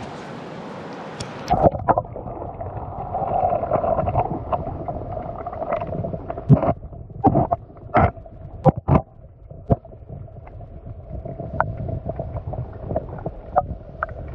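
River water heard first in open air, then through a submerged action camera. The sound turns muffled and dull as the camera goes under about two seconds in, with a steady low hum and scattered sharp clicks and knocks.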